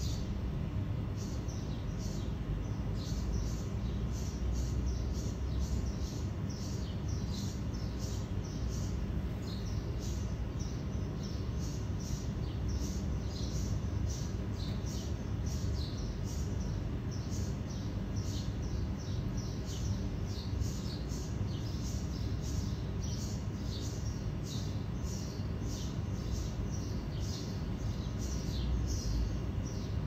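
Steady low hum of a clustered honeybee swarm, with small birds chirping in short, high, repeated calls about twice a second.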